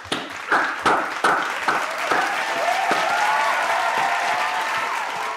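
Applause from many video-call participants clapping at once, their separate microphones mixed together, with sharp individual claps standing out early on. From about two seconds in, a wavering whistle-like tone runs over the clapping.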